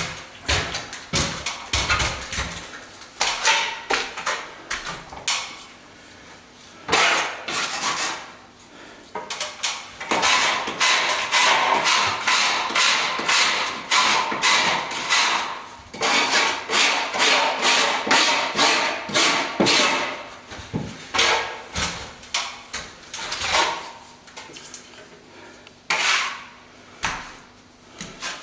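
Plastering tool scraping in quick repeated strokes, with occasional knocks, as a stopping plaster and lime mix is worked. The strokes come in dense runs broken by short pauses.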